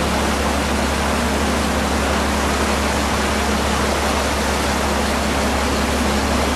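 Tow truck moving through floodwater: a steady rushing noise with a low, even engine hum underneath.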